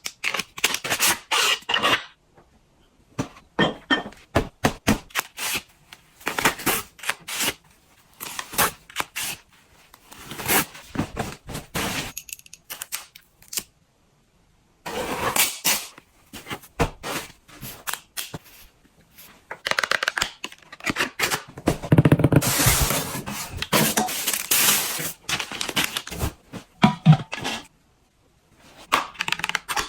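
Packaging being unwrapped by hand: paper and plastic rustling, tearing and scraping, with sharp clicks, in short irregular bursts broken by a few abrupt silent gaps.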